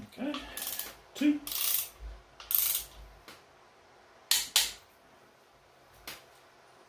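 Click-type torque wrench tightening crankshaft main cap bolts to 70 ft-lb: bursts of ratcheting as the handle is pulled and swung back, then a few sharp clicks in the second half as the wrench breaks over at its setting.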